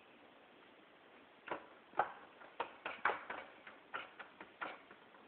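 Irregular sharp taps and knocks, about a dozen starting about a second and a half in, from hands pressing and spreading dough into a metal baking tray.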